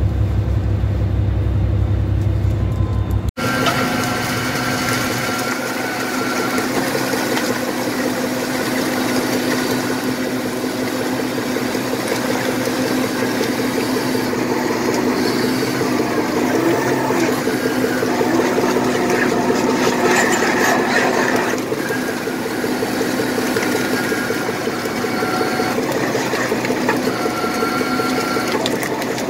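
A boat engine drones low, then after a cut about three seconds in, a purse seiner's deck machinery runs steadily with a fast mechanical rattle and a steady whine while the seine full of salmon is hauled aboard.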